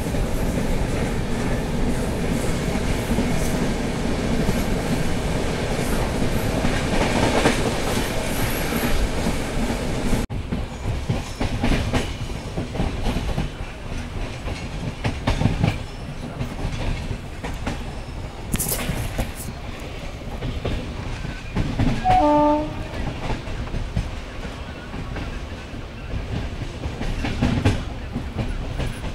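A passenger train's coach running at speed, heard at an open doorway: a steady rush of wind and running gear, loudest for the first ten seconds, then wheels clacking over rail joints. A short horn blast sounds about two-thirds of the way through.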